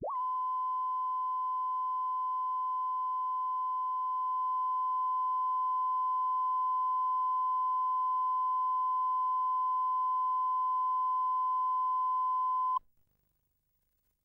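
Steady 1 kHz line-up test tone, the reference tone laid with colour bars at the head of a broadcast tape, held unbroken for about thirteen seconds and then cutting off abruptly.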